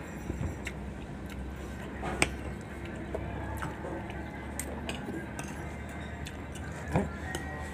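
Spoons and forks clinking and scraping against plates while eating, with two sharper clinks, one about two seconds in and one near the end, over a low steady background hum.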